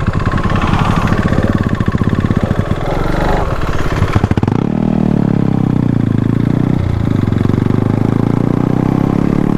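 Yamaha R15 V3's single-cylinder engine running through an Akrapovic slip-on exhaust with the dB killer removed, pulling hard while riding. About halfway through it settles into a steadier, lower note.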